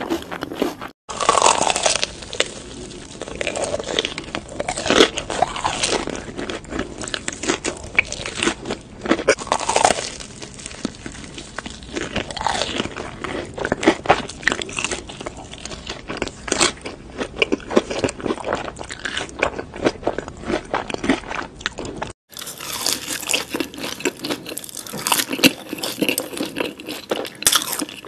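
Close-miked mouth sounds of eating: crisp crunching bites and wet chewing of potato-coated cheesy corndogs, then of fries dipped in melted cheese sauce. The sound cuts off abruptly about a second in and again near the end as one eater gives way to another.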